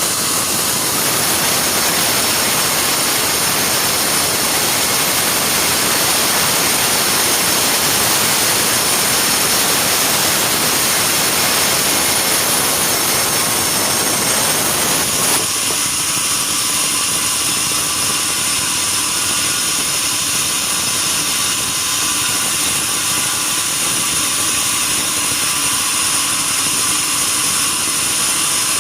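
Sawmill saw running under load through timber, a loud steady machine noise. About halfway through, the deeper part of the sound drops off suddenly and the saw runs on with a thinner, higher hum, as when the blade comes out of the cut.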